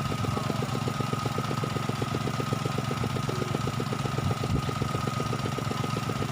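Small engine idling steadily, with a rapid even beat of about ten pulses a second and a steady high whine alongside.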